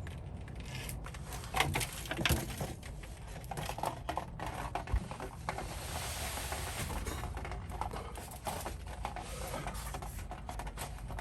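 Socket ratchet clicking in short irregular runs, with metal tools knocking, as a tight fuel strainer is worked loose under the car.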